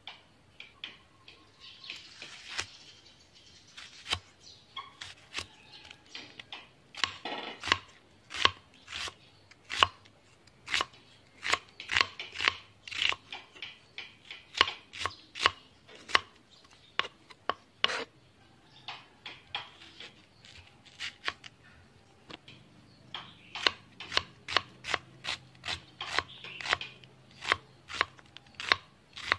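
Kitchen knife slicing a red onion and then a white onion on a round wooden chopping board: runs of quick knocks as the blade strikes the wood, broken by short pauses.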